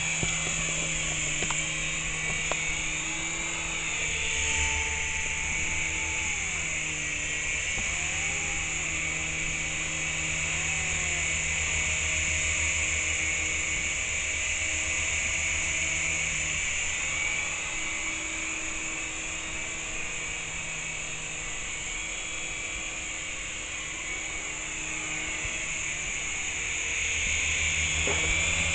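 RC helicopter's motors and rotors whining steadily in flight, the pitch gliding up and down a little as the throttle changes.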